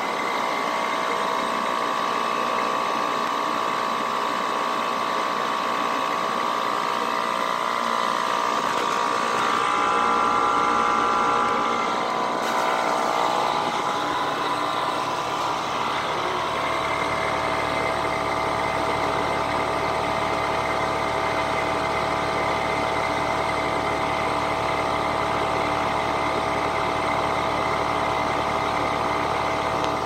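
2016 Carrier 25HCE4 heat pump outdoor unit running, its condenser fan spinning: a steady whirring hum with several steady tones. A deeper hum grows stronger about halfway through.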